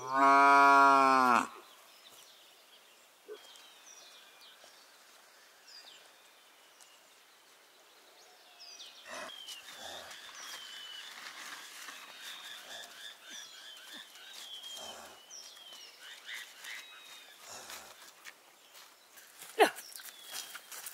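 A cow moos once at the start, one call of about a second and a half and the loudest sound here. From about nine seconds in, small birds chirp on and on with short rising and falling calls, and a sharp knock comes near the end.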